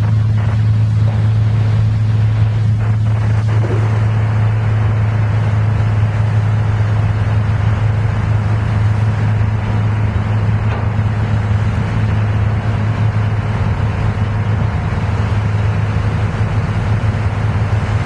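A boat's engine running steadily with a low, even hum, under the rush of water along the hull.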